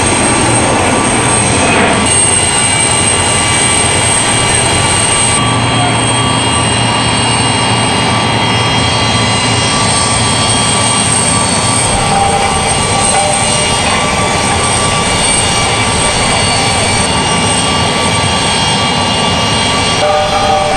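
Jet turbine noise running steadily with a loud rumble and a high, constant whine. Its character shifts slightly about two and five seconds in.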